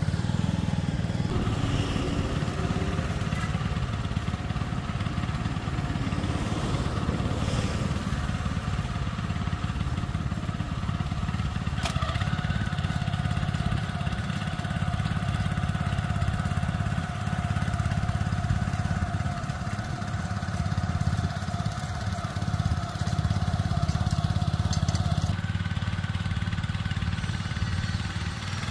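Small engine of a walk-behind cultivator running steadily under load as it pulls a plastic mulch-laying attachment along the bed.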